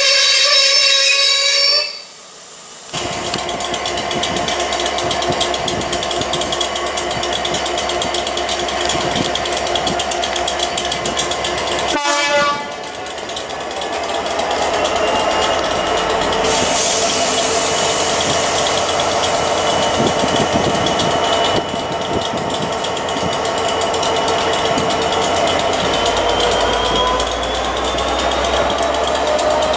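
Passenger coaches rolling through a station. A high note of several tones sounds for about the first two seconds, then there is steady running noise from the train. After a cut about twelve seconds in, more train noise follows, with a whine that slowly rises in pitch, as from a train picking up speed.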